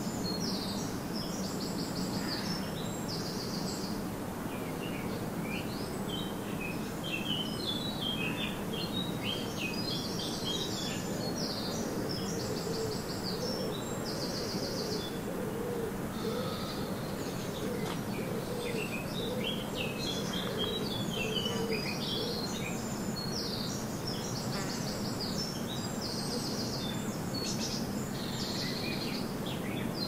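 Songbirds singing in a garden: many repeated short trilled phrases and chirps, overlapping throughout. Under them runs a steady low background hum.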